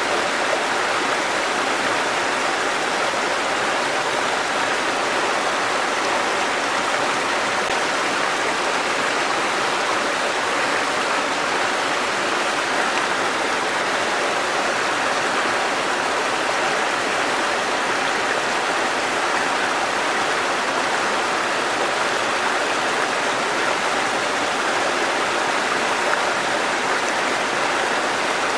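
Small waterfall: a thin curtain of water falling onto rocks and splashing into a pool, a steady, even rushing splash with no change.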